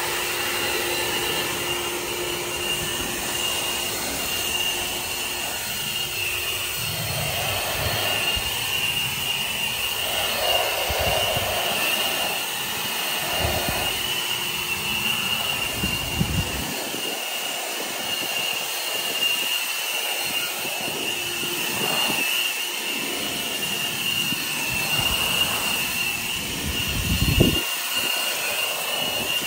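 Two EGO cordless electric blowers running steadily, a rush of air with a constant high whine, blowing water off a car's body. A few low gusts of air break through, the strongest near the end.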